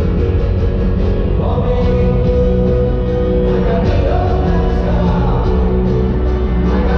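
Live rock band playing loud and steady over the stadium's sound system, heard from high up in the stands.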